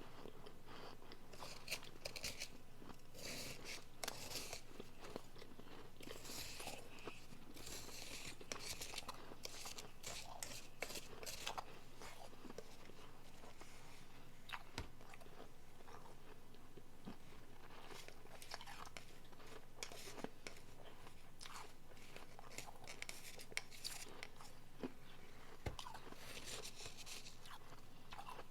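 Close-up biting and chewing of soft, refrozen powdery blender ice: spells of crisp, crackly crunches a few seconds long, with short pauses between bites.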